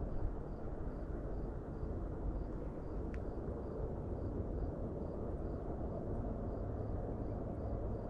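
Steady low rumble of a freight train working up a steep grade, with a low steady hum joining about two-thirds of the way in.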